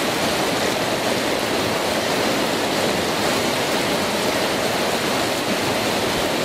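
Steady rushing of whitewater pouring through a rocky mountain-river rapid.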